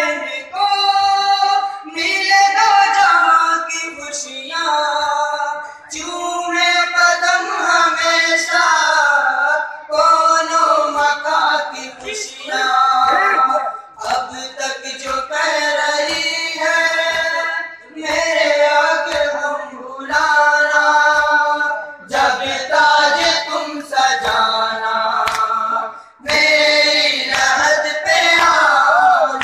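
Shia noha lament sung by male voices through a microphone, in phrases a few seconds long with short breaks between them, over regular thumps of men beating their chests (matam).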